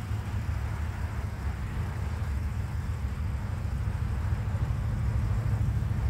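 Diesel locomotives of a Union Pacific train giving a steady low engine rumble that grows slowly louder.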